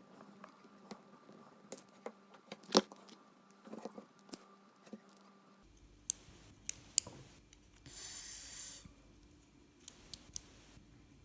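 Small sharp metallic clicks and taps as a BKS padlock cylinder and its pins are handled and taken apart, with a brief scraping hiss about eight seconds in.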